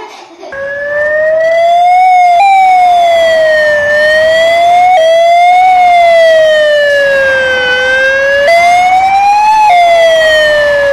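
Emergency vehicle siren sounding loudly, one tone sliding slowly up and down every couple of seconds, with a few sudden jumps in pitch. It starts about half a second in.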